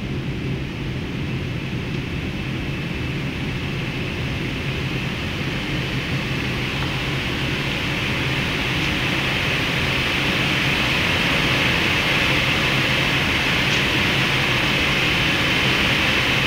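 Steady rushing noise on a Boeing 777 flight deck during approach: airflow over the nose and air-conditioning hiss under a low hum. It grows a little louder about halfway through, then holds steady.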